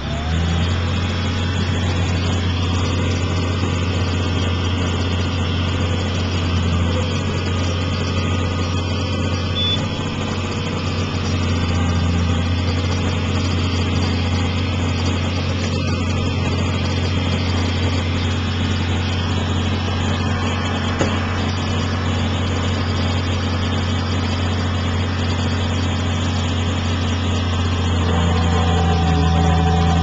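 Tractor diesel engine and pull-type forage harvester running steadily under load while chopping corn silage, heard from inside the tractor cab as a steady low drone. About two seconds before the end it grows louder, with added humming tones.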